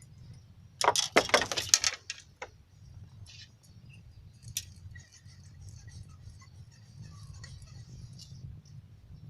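A burst of light metallic jingling and clinking lasting about a second, starting just under a second in, followed by a few faint scattered clicks over a steady low background hum.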